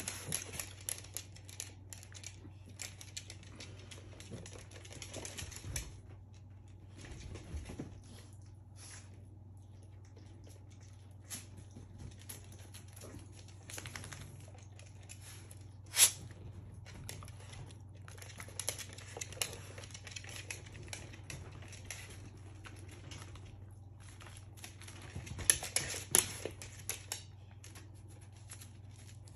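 A seven-week-old American hairless terrier puppy moving about and being handled: irregular small clicks, scratches and rustles, with one sharp click about halfway through. A steady low hum lies underneath.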